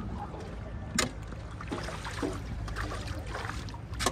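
Pedal boat moving across open water: water lapping along the hull over a low, steady rumble of wind on the microphone, with a single knock about a second in.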